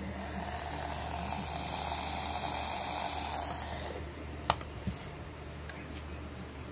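Electric milk frother whisking heavy cream: a swishing hiss that swells, then fades out about four seconds in, over a steady low hum. Two light clicks come shortly after, half a second apart.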